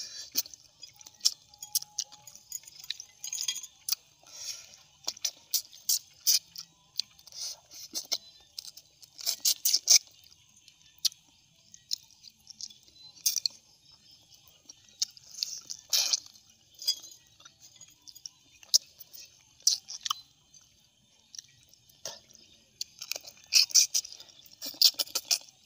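Close-miked mouth sounds of a man eating boiled armored catfish: irregular wet chewing clicks and smacks in clusters, loudest about ten seconds in and again near the end.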